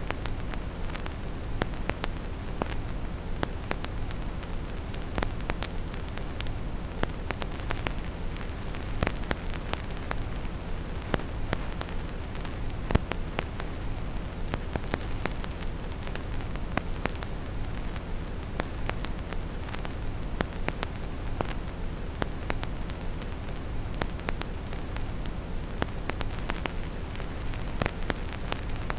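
Vinyl record crackle: irregular small clicks and pops of a stylus riding the groove with no music, over a steady deep brown-noise rumble. One louder pop about halfway through.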